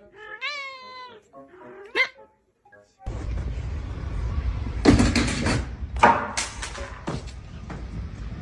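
A domestic cat meowing: a long falling meow, then a shorter rising one. After an abrupt cut, a steady noisy background with a few loud sudden noises about five and six seconds in.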